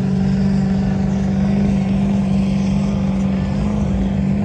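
Mega truck's engine held at high, steady revs during a timed mud-race run, its pitch nearly constant.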